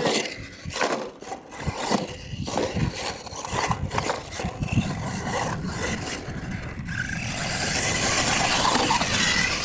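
Radio-controlled monster truck running and stunting on a dirt track: its motor and gears whine as its tyres scrabble in the dirt, with several sharp knocks as it strikes ramps and lands.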